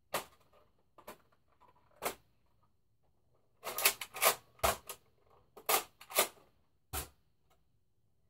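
Sharp plastic clicks and clacks from Nerf blaster parts being handled and fitted together on a Nerf Recon Mark II: a few single clicks, a quick flurry about three and a half seconds in, and a few more near the end.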